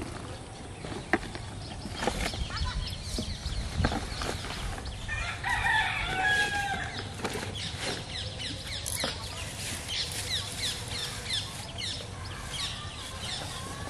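A rooster crowing once, about five seconds in, then short chirping bird calls repeating. A few sharp knocks come near the start.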